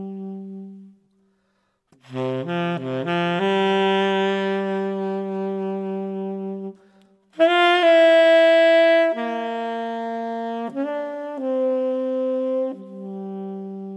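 Jazz saxophone playing a slow melody of long held notes, with a quick run of short notes about two seconds in and a louder, higher phrase around the middle.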